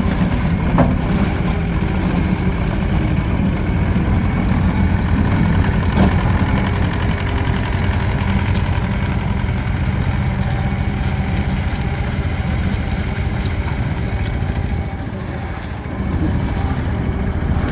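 Turbo diesel engine of a Gehl RT210 tracked skid steer running steadily, with a couple of sharp clicks, one about a second in and one about six seconds in.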